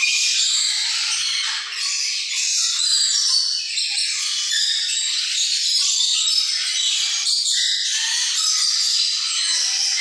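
Steady, dense high-pitched chirping and chattering from many small caged birds at once.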